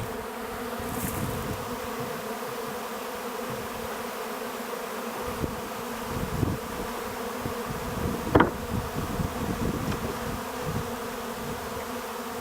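Swarm of honeybees buzzing, a steady hum with a clear pitch. About eight seconds in there is a brief, louder buzz.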